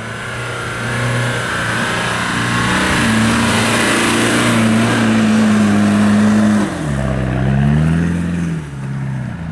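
Land Rover Discovery's engine revving hard under load on a sandy climb: revs climb over the first few seconds and hold high, drop sharply about seven seconds in, rise briefly and fall again near the end.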